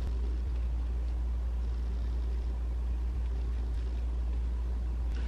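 Steady low background hum with a faint hiss; no distinct sounds stand out.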